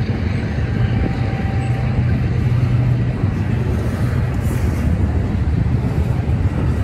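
Double-stack intermodal well cars rolling slowly past, about 15 mph, their steel wheels on the rails making a steady low rumble.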